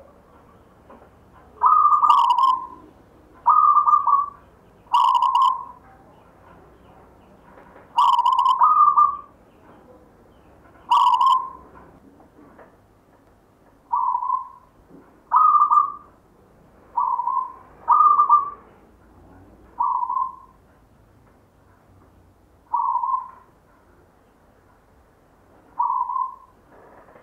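Caged zebra dove (perkutut) cooing: a series of short, clear coo notes, some coming in quick pairs, repeated every one to three seconds.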